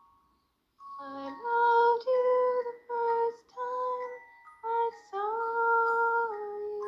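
A woman singing a slow lullaby to a child: held notes with short breaks between phrases, beginning about a second in.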